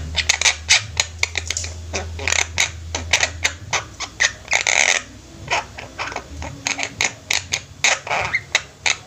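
A group of Javan mynas (jalak kebo) calling busily with quick, sharp chattering notes and squawks, several birds overlapping. A low hum runs under the first few seconds.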